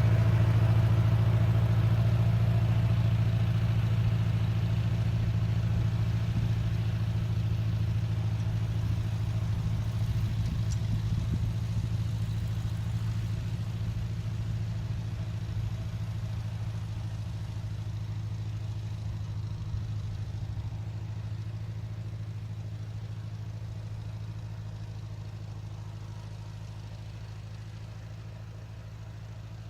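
Massey Ferguson 50 tractor engine running at a steady, even speed, gradually getting quieter.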